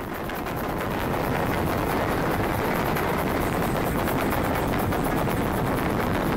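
Batucada, a Brazilian samba drum band, playing loud and close in a dense crowd, heard as a thick, unbroken din of drums with crowd noise mixed in.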